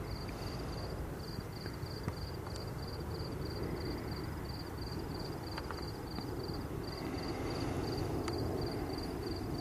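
Crickets chirping steadily, about three chirps a second, over the low rumble of a distant aircraft overhead that grows a little louder near the end.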